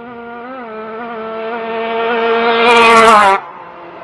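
A Yamaha RX two-stroke drag motorcycle at full throttle, its high, steady engine note growing louder as it closes in, then cutting off suddenly about three and a half seconds in.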